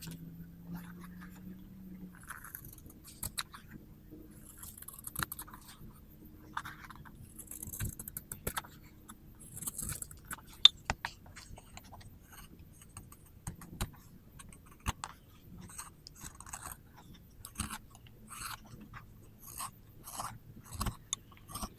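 A steel hand tool working wood: irregular short scraping strokes and crunches, with scattered sharp clicks and taps.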